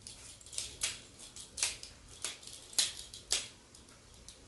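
Handling noise of a DSLR camera and tripod parts: a string of about ten irregular, sharp clicks and light knocks.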